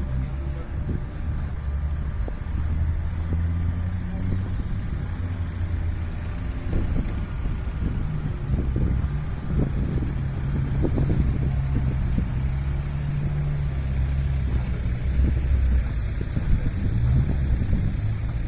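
Rally car engine idling steadily, with scattered light knocks.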